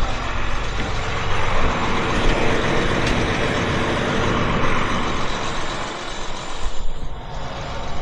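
Farm tractor engine running with a steady hiss over it while its hydraulics fold the grain cart's auger down into transport position. The sound eases briefly about a second before the end.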